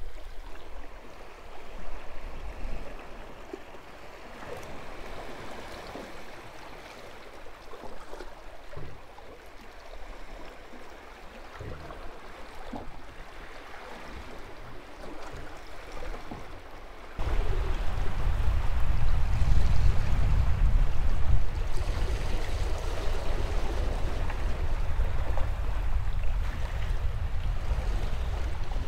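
Sea water washing against shoreline rocks, with a few faint clicks. About two-thirds of the way through it jumps abruptly to a loud low rumble of wind on the microphone.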